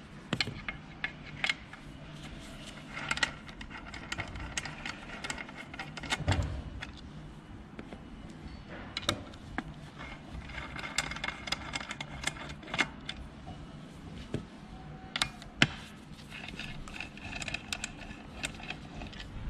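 Steel screws being undone with a T-handle key and set down on a workbench: scattered small metallic clicks and clinks, with one sharper click about fifteen seconds in.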